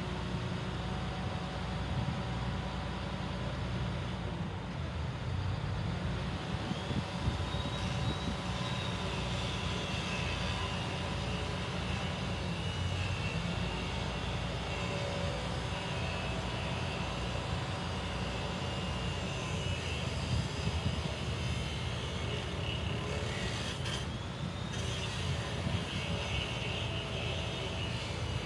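Bucket truck's engine running steadily with a low rumble.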